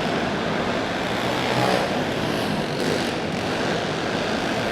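A pack of racing go-karts' small single-cylinder four-stroke engines buzzing together at full throttle, just after the green flag.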